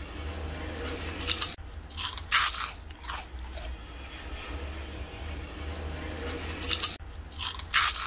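Crunching of crispy puffed snack chips being bitten and chewed, a cluster of sharp crunches about a second in and another near the end, over a steady low hum.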